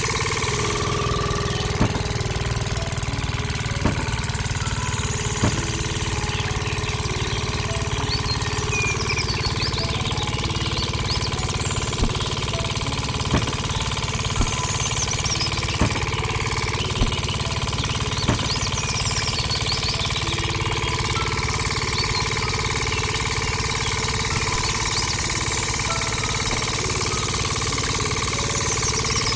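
A small motor running steadily with a constant hum, with sharp clicks scattered through the first two-thirds.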